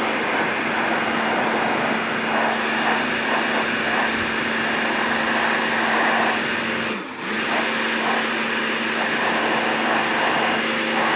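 Electric pressure washer running, a steady motor hum with the hiss of the water jet spraying a wall. About seven seconds in the motor briefly dips, then picks up again.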